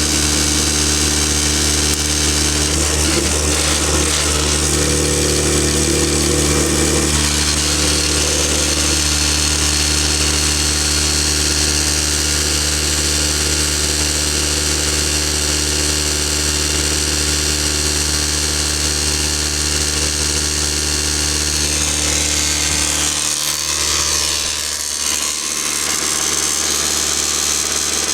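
Tornado F2 electric drywasher running steadily through its clean-out cycle, a constant low motor hum with a rushing hiss over it. The low hum dips briefly a little over 20 seconds in, then picks up again.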